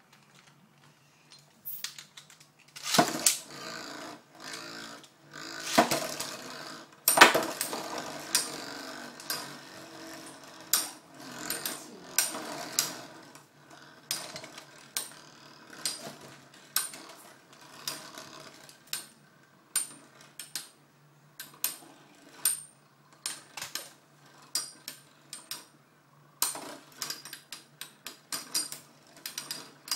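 Two Metal Fight Beyblade spinning tops clashing in a clear plastic stadium: a few loud clattering hits a few seconds in, then sharp clicks of collision about once a second, bunching into a quicker rattle near the end.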